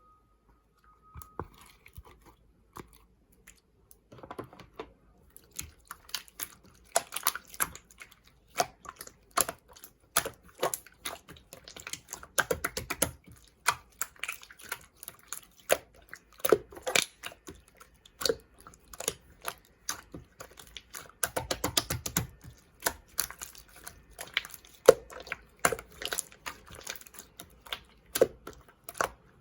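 Slime being squished and poked by hand: an irregular run of sticky clicks and pops, sparse for the first few seconds, then dense.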